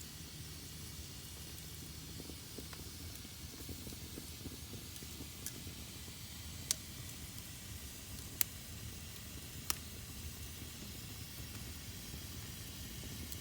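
Fire burning in a fireplace: a steady hiss and low rumble, with four sharp crackling pops in the second half.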